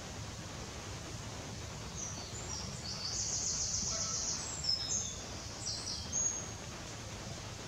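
A small bird singing, a high rapid twittering from about two seconds in that stops near the end, over a steady low background rumble.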